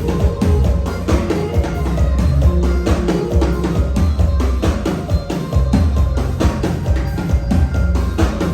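Music with a steady drum-kit beat and heavy bass.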